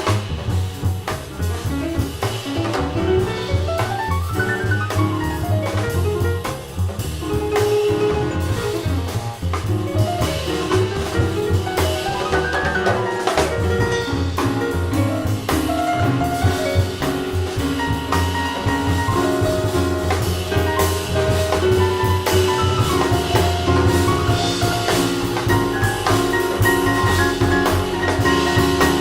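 Jazz band playing: a drum kit with busy cymbal work over a steady bass line, and a moving melodic line on a pitched keyboard-type instrument.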